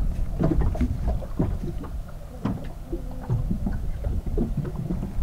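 Wind and water around a small fishing boat at sea: a steady low rumble with scattered light knocks and clicks.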